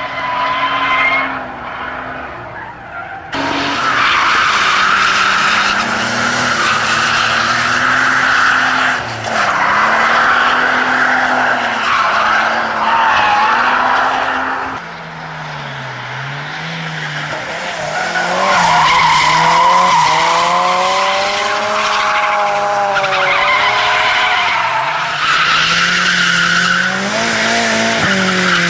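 Drift cars sliding through corners, their engines revving up and down in sweeps while the rear tyres squeal and scrub on the tarmac. The sound switches abruptly a few times from one car to another.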